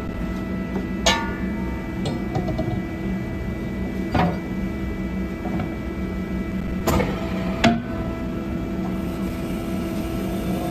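CNC machine running with a steady, many-toned hum, broken by four sharp metallic knocks, the last two close together near the end.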